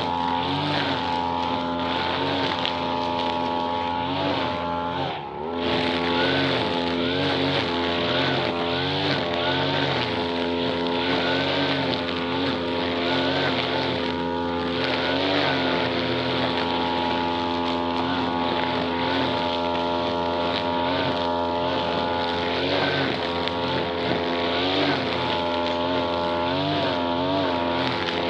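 Small brush cutter (grass trimmer) engine running at high speed, its pitch wavering up and down as the throttle is worked, with a brief drop about five seconds in.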